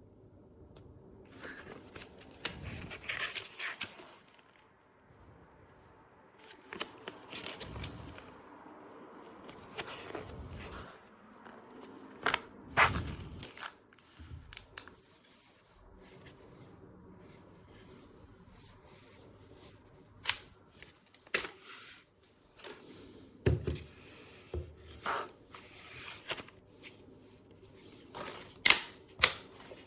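Handling noise: rustling and scraping, then a series of sharp clicks and knocks, with the loudest clicks near the end.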